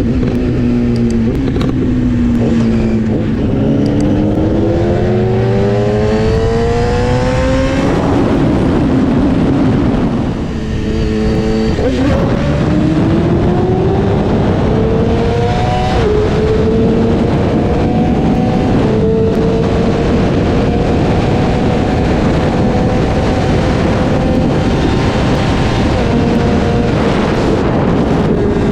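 Inline-four sport motorcycle engine accelerating hard through the gears: the pitch climbs in long sweeps and drops back at each upshift. It eases off briefly about ten seconds in, then pulls again and holds a high, slowly rising pitch.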